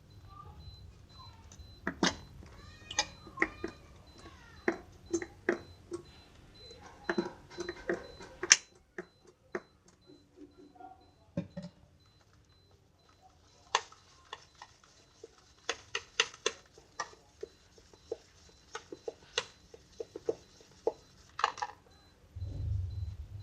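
Slime being squeezed and worked by hand, giving irregular sharp clicks and pops, with a quieter stretch in the middle and a brief low rumble near the end.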